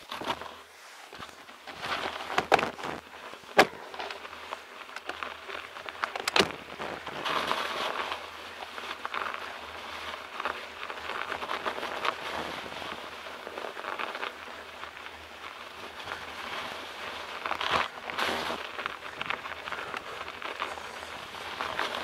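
Bicycle rolling over a snow-covered dirt track: the tyres crunch and crackle steadily through the snow, with a few sharp knocks from the bike over bumps, the loudest about four and six seconds in.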